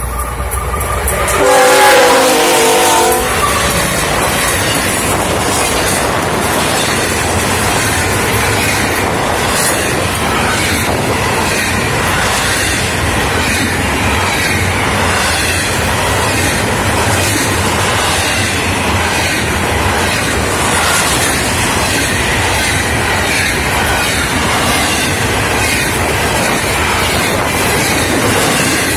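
Florida East Coast Railway freight train passing close by. The diesel locomotive's horn sounds as it goes past a second or two in, falling slightly in pitch. Then the double-stack container cars roll by with a steady rolling noise and a rhythmic clickety-clack of wheels on the rails.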